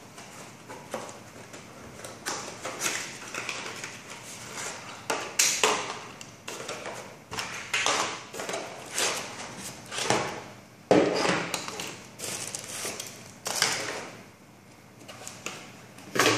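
Unpacking noises: a cardboard box being opened and plastic-wrapped components and cables being handled and set down on a table, in irregular rustles, crinkles and light knocks.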